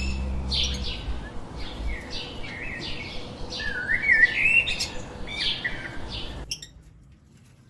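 Small pet parrots chirping, a quick run of short, high chirps that stops about six and a half seconds in.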